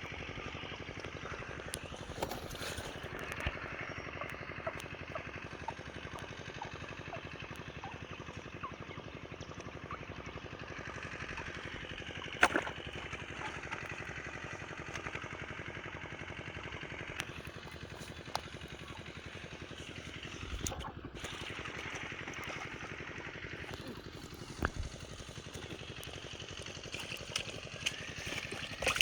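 A small engine running steadily, with water trickling and scattered clicks and knocks, the sharpest about twelve seconds in.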